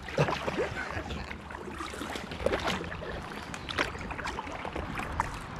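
Double-bladed kayak paddle dipping and pulling through calm water close by, a splash and drip with each stroke, several strokes in a row.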